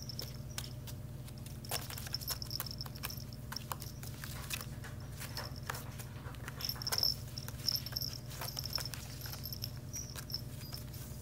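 A kitten scrabbling in a woven basket while chasing its own tail: irregular scratchy clicks and rustles of claws and paws on the woven fibre, over a steady low hum.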